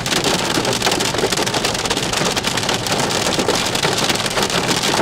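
Heavy thunderstorm rain pelting down, a loud, dense hiss of countless drop impacts that cuts off suddenly at the end.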